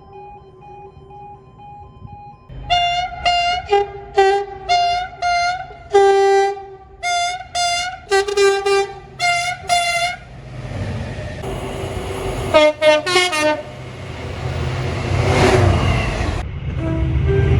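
A train's two-tone horn gives a quieter held note, then a long run of short, loud blasts in a rhythmic pattern. The rumble of a train then builds, with a quick flurry of very short toots about halfway through, and grows loud toward the end as the train comes closer.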